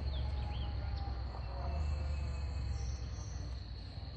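Creekside insects making a steady high buzz, with a few short chirping calls about half a second in, over a low steady rumble.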